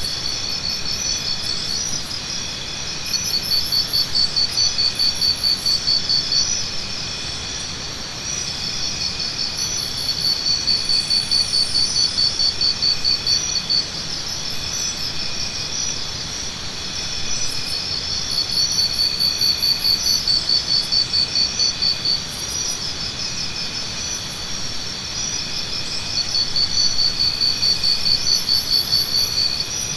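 Jungle morning ambience: a dense chorus of chirping insects, with a louder rapid pulsing insect call that swells in bouts of a few seconds about every eight seconds.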